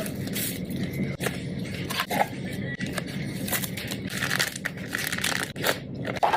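Crinkling, tearing and crackling of convenience-store food packaging being handled and opened, in many sharp, irregular clicks over a steady low hum.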